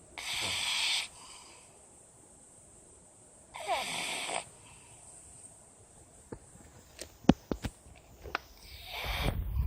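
Pug snoring: two long, raspy snores about three seconds apart. After them come several sharp clicks and a low rumble near the end.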